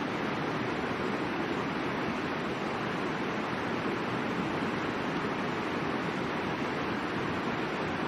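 River water rushing: a steady, unbroken rush of flowing water.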